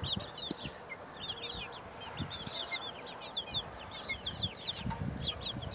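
Flock of young chickens peeping and chirping: many short, high calls overlapping one after another.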